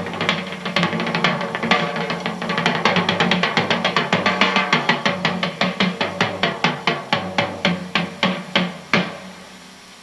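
Panasonic RS-466S boombox playing percussion music from a cassette through its speakers: a fast, even run of drum strokes that spaces out and dies away about nine seconds in, leaving faint tape hiss.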